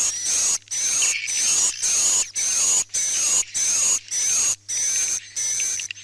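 Edible-nest swiftlet calls: a recorded 'night lullaby' track of buzzy, high-pitched chirping twitters for swiftlet houses, in short phrases repeating about every 0.6 s with brief gaps between them. A faint steady low hum runs underneath.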